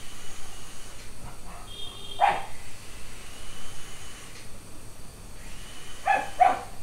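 A pug barking at a small toy drone: one short bark about two seconds in, then two quick barks near the end.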